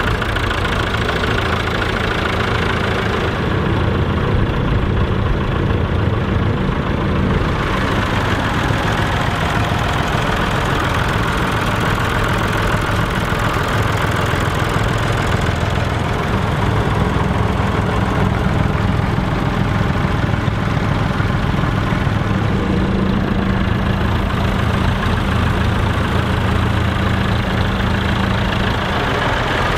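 Massey Ferguson tractor's diesel engine idling steadily up close, with a low, even diesel knock.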